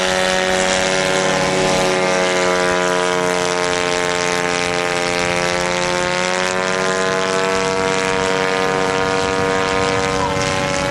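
Ultralight aircraft engine and propeller droning in flight, a steady buzzing note whose pitch drifts slightly up and back down.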